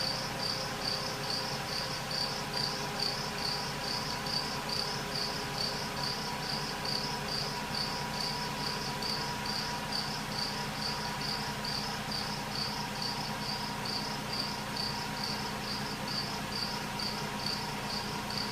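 Lexus RX 300's 3.0 V6 running, with a high-pitched chirping squeak repeating evenly about three times a second. This is the cold-start squeal that has persisted after a new harmonic balancer and new serpentine belts were fitted; its cause is still unknown.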